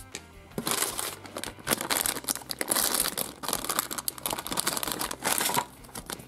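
Glossy plastic surprise packet being torn open and rummaged through by hand, crinkling and crackling densely from about half a second in until shortly before the end.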